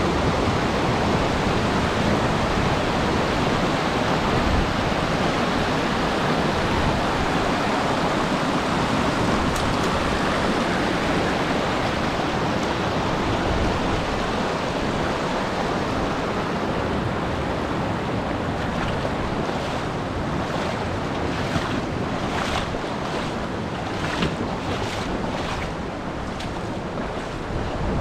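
Steady rush of river water flowing over rocks, with some wind on the microphone. In the last several seconds a scattering of short knocks or handling noises joins it.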